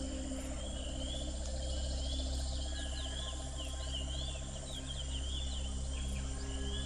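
Crickets and other insects chirping over a steady low hum: short chirps repeat throughout and crowd together about three to four seconds in, with a fast trill underneath for the first three seconds.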